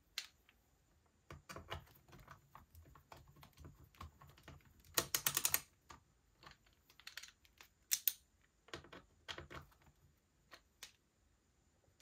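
Screwdriver tightening the screws of a laptop's plastic back panel: scattered light clicks and taps, with a quick run of clicks about five seconds in and another sharp click near eight seconds.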